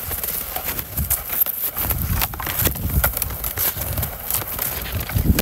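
Branches cracking and snapping as a fallen tree trunk's limbs are worked by gloved hands, with many sharp cracks over low thumps.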